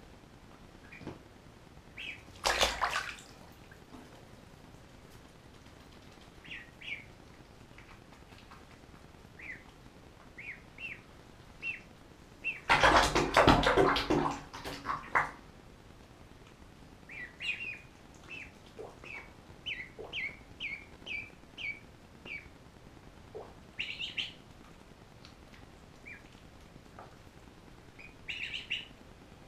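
Ducklings peeping in short high chirps, scattered throughout, with a longer louder splash of bath water about 13 seconds in as a duckling drops into the tub, and a shorter noisy burst about two and a half seconds in.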